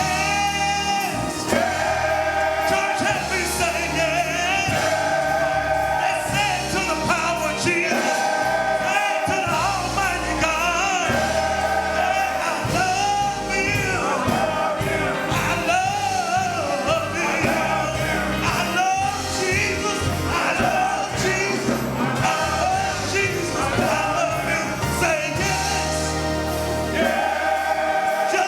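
Gospel song sung by a choir with instrumental backing: long held vocal notes over a steady bass line.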